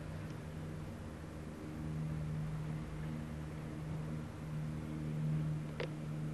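Steady low hum as a narrow-gauge electric railcar slowly approaches, with a short sharp sound near the end.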